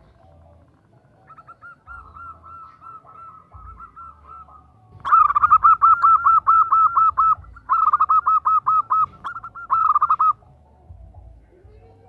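Female zebra dove (perkutut) calling to attract a male: a faint rapid trill of quick repeated notes, then about five seconds in three loud bursts of the same fast notes, the first about two seconds long and the next two about a second each.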